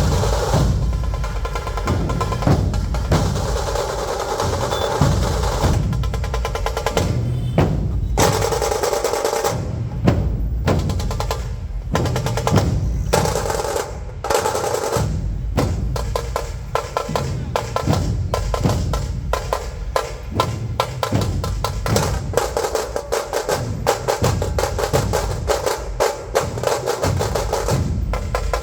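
Dhol drums beaten in a loud, fast rhythm with rapid snare-like rolls; the strokes come quicker and denser from about halfway through.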